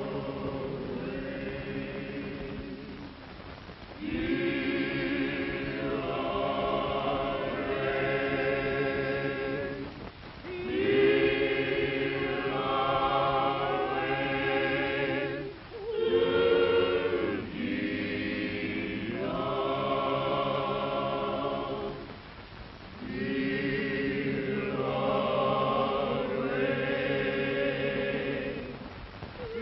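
A choir singing a slow, hymn-like song in harmony, in long held phrases with short pauses between them, five phrases in all.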